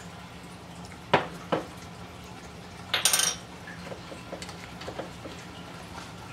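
Kitchen utensils knocking: two sharp knocks about a second in, then a brief rattling clatter around three seconds in, as a small plastic measuring spoon is put down on a tiled counter. Light scattered taps follow.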